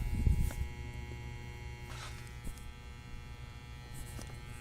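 Steady electrical buzz with mains hum from powered-up vintage electronic equipment, with a brief low bump near the start.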